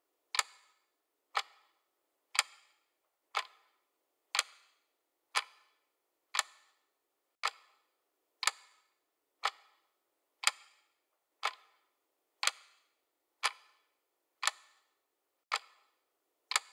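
A sharp click repeating at an even pace, about once a second, each with a brief ringing tail, like a clock or metronome tick.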